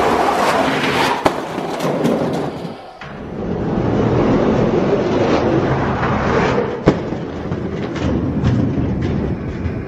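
Die-cast Hot Wheels monster trucks rolling fast down a plastic toy race track with a steady rumbling clatter of wheels on track, a sharp click about a second in and another near seven seconds.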